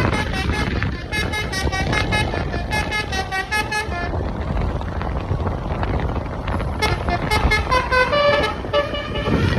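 Basuri 'telolet' musical air horn on a bus playing quick runs of short notes that step up and down in pitch like a little tune, in two bursts with a pause of nearly three seconds between them. A low engine rumble runs underneath.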